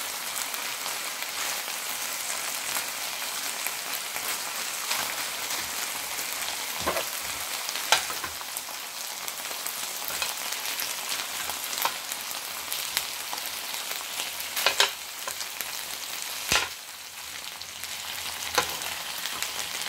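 Chicken breast fillets sizzling steadily in an oiled grill pan, with a few sharp clicks and scrapes as tongs turn and shift the pieces against the pan.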